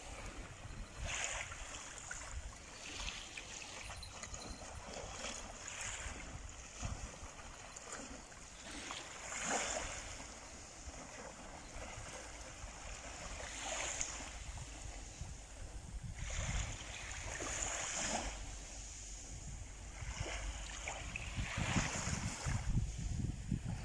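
Small waves breaking and washing up a sandy beach, swelling every few seconds, with wind rumbling on the microphone, strongest near the end.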